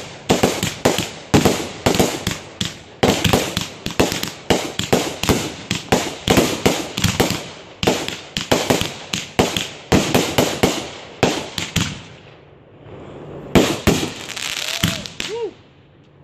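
Consumer aerial fireworks firing in rapid succession: a long string of sharp bangs and crackles, about three to four a second. It breaks off about twelve seconds in, and after a short pause a last few bangs follow.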